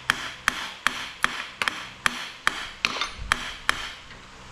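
Hammer tapping steadily on a stuck pulley on the nose of a Nissan RB25 engine's crankshaft, about two and a half blows a second, each with a short metallic ring, while it is pried from the other side; the pulley is starting to work loose.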